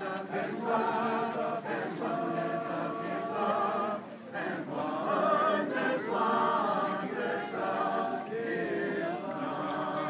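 A group of voices singing together, unaccompanied, with a brief break between phrases about four seconds in.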